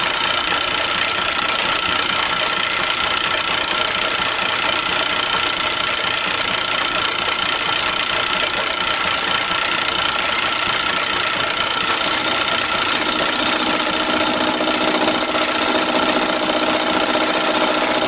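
Small metal lathe running steadily, with a constant high whine over the drive's whir, while a round-edged tool bit is fed slowly into the workpiece; a lower hum joins about two-thirds of the way through.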